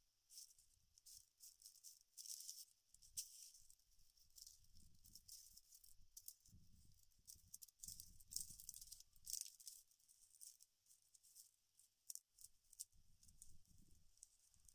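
Faint rustling and crackling of dry palm fibre and stiff yucca strips being handled by hand, in irregular bursts, with soft low thuds as the fibres are pressed and shifted on the ground.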